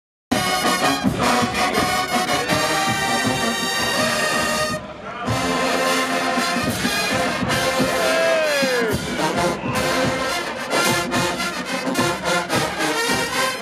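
HBCU marching band's brass section (sousaphones, trumpets, trombones) playing loudly in full, with a steady beat, a brief break about five seconds in, and a falling slide of pitch near the middle.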